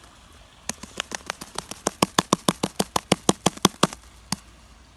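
Fluffy shaving-foam slime being squeezed and kneaded by hand, giving a rapid run of sharp clicks and pops, about six a second, that starts just under a second in and stops about a second before the end.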